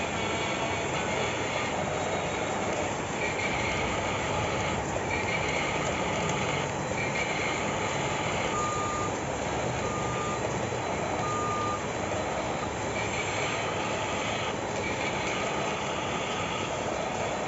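Hydraulic pump of an RC metal excavator running steadily, with a series of electronic reversing-style beeps over it. The beeps come about every second and a half, switch to a lower pitch for three beeps midway, then return to the higher pitch.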